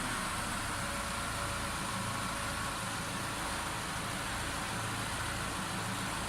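Citroen C4 Grand Picasso's 1.6 THP turbo petrol engine idling steadily, just started on cleaned, oil-fouled spark plugs after a high-pressure fuel pump replacement.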